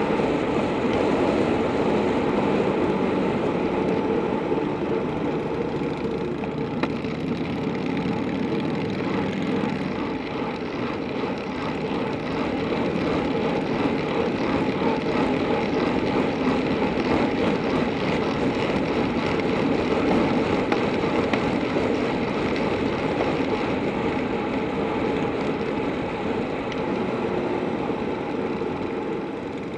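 Steady rush of wind over the microphone of a handlebar-mounted camera on a bicycle descending at speed, with tyre noise from the road. It eases slightly near the end as the bike slows.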